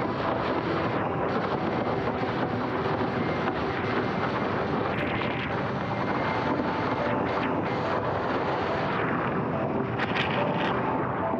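Wind buffeting a camera microphone and water rushing past a windsurf board planing at speed, a steady roar. About ten seconds in, splashing as the sailor falls in a failed jibe.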